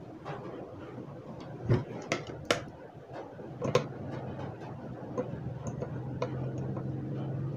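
Pliers and a screwdriver clicking and knocking against the metal parts of a blender as a part is worked loose from the motor shaft: a few sharp clicks close together about two seconds in, two more near four seconds, and lighter ticks in between.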